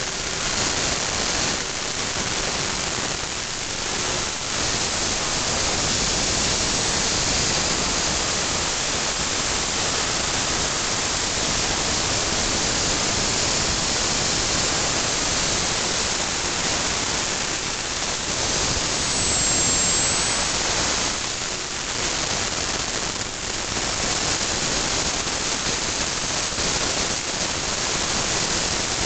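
Homemade gas turbine, built around a Holset turbocharger, running steadily at idle of about 26,000 rpm: a continuous rushing roar of air and combustion at the compressor intake.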